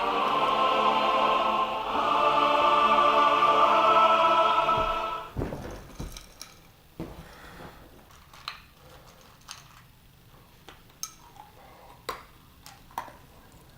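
Choral music with long held notes that fades out about five seconds in. Scattered light clinks and knocks of dishes and cutlery follow, roughly one a second.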